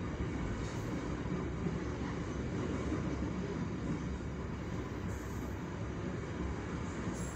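Commuter train running along the track, heard from inside its rear cab: a steady noise of the train in motion.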